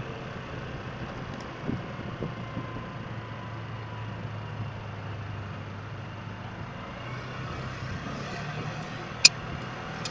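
SYM Jet SR scooter's single-cylinder engine running steadily under way, with road and wind noise, picked up at the scooter's front shield. A single sharp click about nine seconds in.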